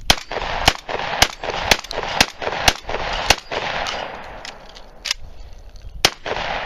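Shotgun fired in a rapid string: seven shots about half a second apart, each trailed by an echo. A few fainter sharp cracks follow, then one more loud shot near the end.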